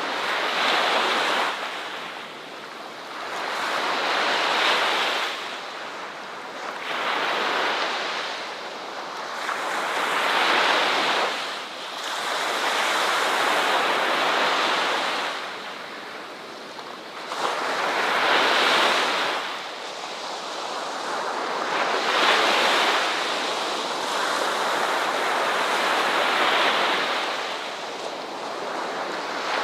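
Ocean waves breaking and washing on a beach: a hiss of surf that swells and falls back, one wave every three to four seconds.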